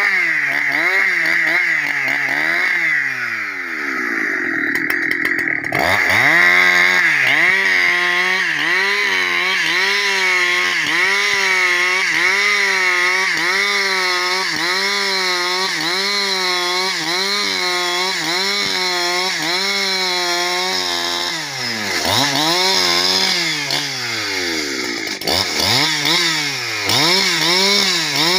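Husqvarna 365 two-stroke chainsaw ripping lengthwise through a log to cut planks, running under load with its pitch wavering up and down about once a second. The engine slows and drops in pitch a few seconds in, then picks back up, and dips twice more near the end.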